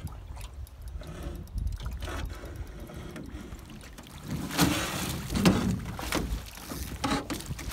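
Water slapping against a small boat under a low rumble of wind, then a big northern pike splashing as it is scooped into a landing net and lifted against the boat's side, in a few loud splashes about four and a half to five and a half seconds in.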